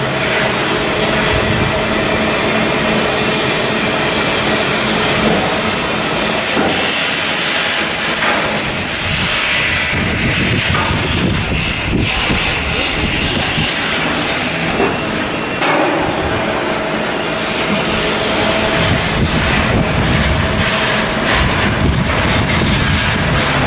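Shipyard work noise from block assembly and outfitting on a ship under construction: a loud, steady hiss with machinery running under it. The mix shifts about six seconds in and again about fifteen seconds in.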